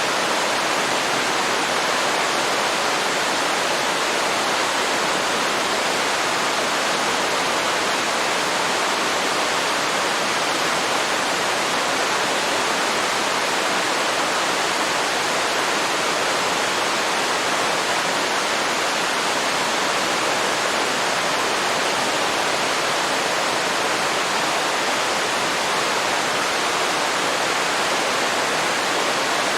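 Waterfall: a steady, even rush of falling water, without breaks or changes.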